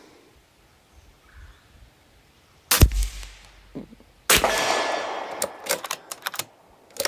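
Two rifle shots about a second and a half apart: the first a sharp crack with a deep boom, the second a loud report that rings on for about a second. A few quick sharp clicks follow, like a bolt being worked.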